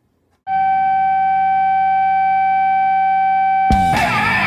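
A single steady electronic tone starts about half a second in and holds at one pitch for about three seconds. Near the end it gives way to strummed guitar music.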